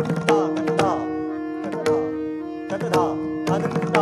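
Pakhawaj solo: sharp open and closed strokes on the two-headed barrel drum, struck in quick clusters with ringing, pitched tones from the tuned right head, over a steady held drone.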